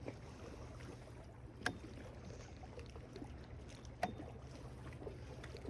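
Faint steady low rumble with two sharp clicks, one a little under two seconds in and one about four seconds in.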